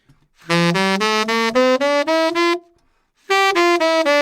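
Tenor saxophone played dry, without effects, running up a G major scale in eight even, separate notes, then, after a short breath, starting back down the scale.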